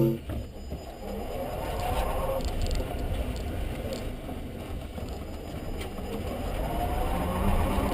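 Renault Zoe Q210's electric drive motor whining over a low road rumble, the whine rising in pitch as the car picks up speed, first about a second in and again near the end.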